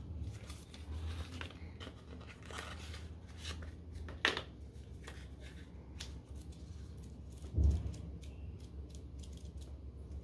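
Phone packaging being handled and opened by hand: a run of small clicks, snips and rustles, with a sharp click about four seconds in and a dull thump about three-quarters of the way through.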